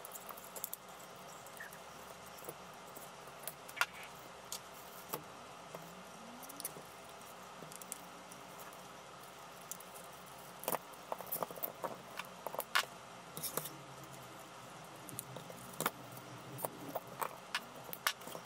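Scattered light clicks and taps of hands handling loudspeaker crossover parts on a hardboard panel, their wire leads being pushed through drilled holes. The clicking gets busier about ten seconds in.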